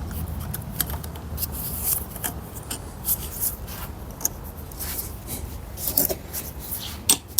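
Hand tools scraping and clicking on the gearbox's metal parts as the 10 mm bolt holding the fifth-gear stopper is undone, ending in a quick run of sharp clicks, about six a second.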